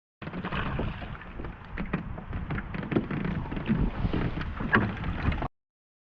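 Wind buffeting the microphone on a small boat on a lake, with scattered knocks and clicks of gear and hull handling; it cuts off suddenly near the end.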